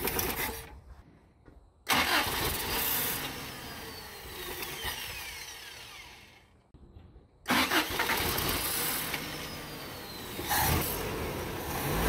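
Carbureted 22R four-cylinder engine of a 1987 Toyota pickup firing up about two seconds in, its revs sinking away until it falls nearly quiet. It fires again after about seven and a half seconds and keeps running, swelling once near the end: the truck's trouble holding an idle.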